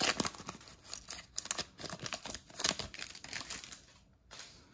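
A Magic: The Gathering booster pack's foil wrapper being torn open and crinkled by hand: a run of irregular crackling rips that dies away at about four seconds in.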